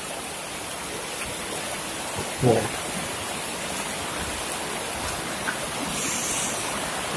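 Steady rushing of rainwater runoff flowing along an open drain channel after heavy rain.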